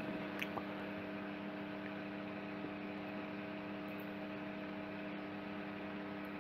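Steady electrical mains hum, a low buzz of several even tones held level throughout, with a couple of faint clicks in the first second.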